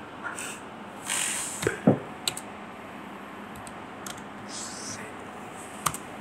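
A few scattered keystrokes on a computer keyboard and mouse clicks: short, sharp clicks spaced irregularly over a low background hiss.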